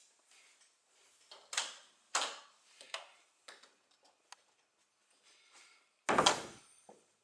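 A string of sharp taps and knocks, roughly one every half second to a second, with one heavier thump about six seconds in: footsteps and door knocks.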